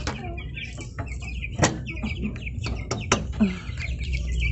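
A group of baby chicks peeping continuously in rapid, overlapping high chirps. A few sharp taps come through in the middle.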